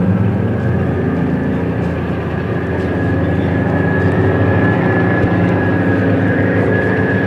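Heavy tracked armoured vehicles driving by, among them a Type 74 tank with its air-cooled diesel engine, running steadily and loudly. A high whine sits above the low engine note.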